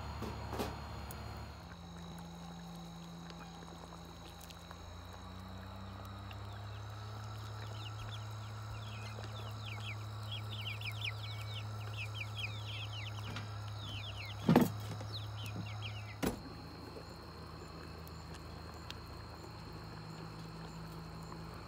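Outdoor ambience: a steady low engine hum, a spell of rapid high bird chirping in the middle, and two sharp knocks over a second apart a little after that, the first the loudest sound.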